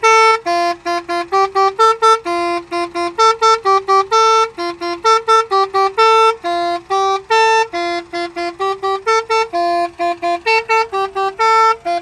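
A truck's multi-tune musical air horn, a basuri-style horn module, playing a quick melody of short, loud honked notes that step among a few pitches. The compressed air is starting to run low.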